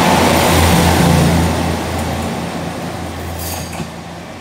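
Diesel limited-express train passing close by and pulling away, its engines' low steady hum and the running noise fading as it leaves. A brief high-pitched squeal about three and a half seconds in.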